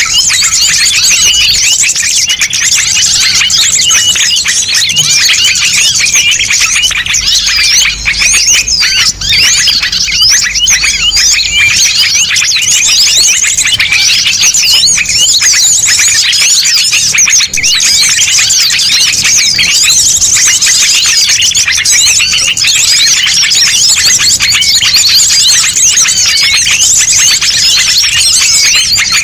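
Loud, dense chorus of many small birds chirping at once without a break: a mixed-species small-bird lure recording (suara pikat burung kecil) made to call small birds in.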